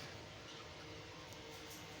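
Faint steady background hiss with a low, even hum and a few soft ticks; no clear bird calls.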